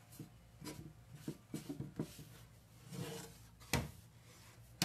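A wooden drawer being handled and rubbed by hand. There is scuffing, with several light knocks and one sharp, louder knock a little before the end.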